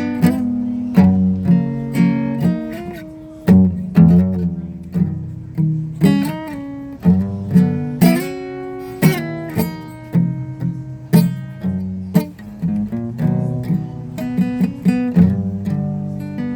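Acoustic guitar being played: a run of plucked notes and strummed chords, each struck sharply and ringing out.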